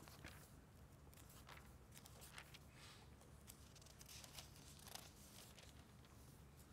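Near silence with faint, scattered rustles of thin Bible pages being turned while people look up a passage.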